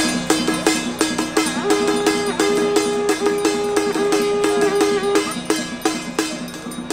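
Traditional Taiwanese temple ritual music: hand drums and other percussion beat a fast, dense rhythm. From about two to five seconds in, a held, wavering melody line plays over the beating.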